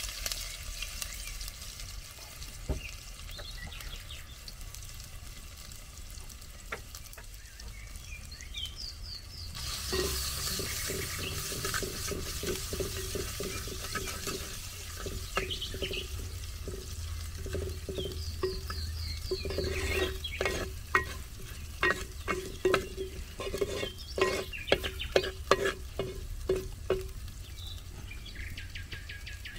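Wooden spoon stirring in an earthenware clay pot of spiced cooking liquid over a wood fire, with a hissing sizzle from about ten seconds in. In the second half the spoon knocks and scrapes quickly against the pot, each knock with a short ring.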